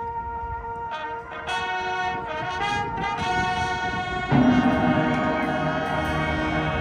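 High school marching band brass playing long held notes, with trumpets and trombones. About four seconds in, the full band comes in suddenly and louder, adding low brass.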